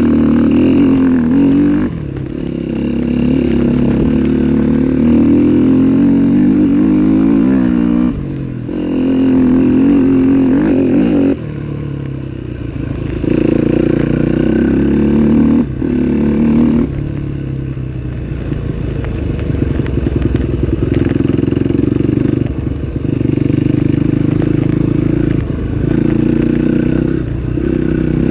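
Trail motorcycle engine running hard, the throttle opening and closing so the engine note rises and falls, with several brief easings off between surges.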